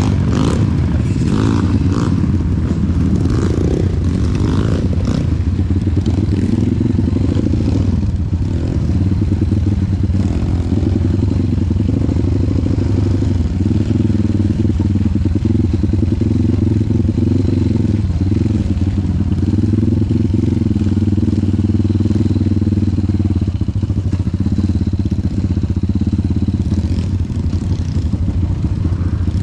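Trail motorcycle engine running at fairly steady, moderate revs, its pitch dipping briefly and picking up again a couple of times, with a few knocks and clatters in the first seconds.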